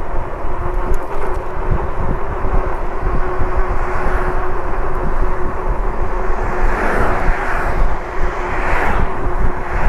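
Riding an e-bike: wind rushing over the microphone and tyre noise, with a steady hum from the hub motor. Two whooshing swells rise near the end.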